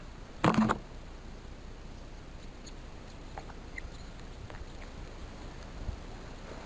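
A brief clatter about half a second in, then faint small clicks and scrapes: parts of a disassembled Malysh vibration pump being handled.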